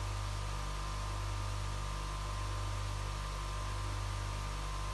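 Axminster Craft AC150BB bench polisher running steadily with its 150 mm polishing wheels spinning: a very quiet, even motor hum with a faint high whine over it, measured at about 58 decibels from a foot away.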